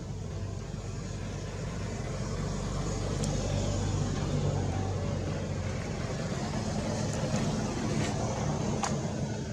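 A motor vehicle's engine running steadily as a low hum that grows a little louder a few seconds in, with two sharp clicks, one about three seconds in and one near the end.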